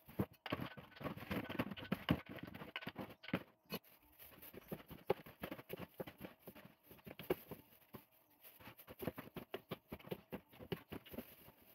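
Clear plastic bag rustling and crinkling as uncooked cheese balls are picked from a plastic tub and dropped into it, with many irregular soft taps and clicks. The rustling is densest in the first few seconds.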